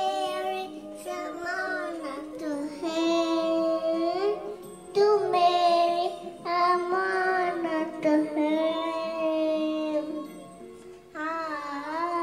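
A young girl singing into a karaoke microphone, amplified through a pink toy karaoke machine, in phrases of long held notes that glide up and down with short breaks between them.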